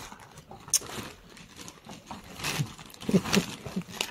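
Plastic carrier bag rustling and crinkling, with the medicine boxes inside shifting, as a cat climbs into it and a hand reaches in. There are a few louder rustles about three seconds in.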